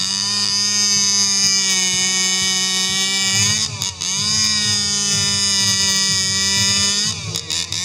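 Chainsaw held at full throttle cutting wood, its high steady note dropping and climbing back as the throttle eases off about three and a half seconds in and again near the end.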